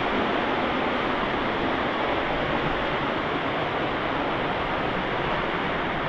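Waterfall cascading down a rock face: a steady, even rush of falling water.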